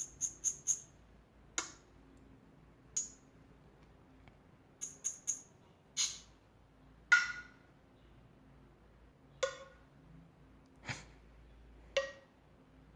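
Short percussion sound effects from a music program played one after another through computer speakers: a quick cluster of four rattle shakes at the start and again about five seconds in, and single hits every second or two, some with a brief ring.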